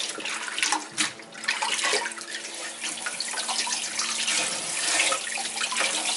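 Tap water running into a stainless steel bowl in a sink, splashing as hands scrub and rinse cucumbers under the stream.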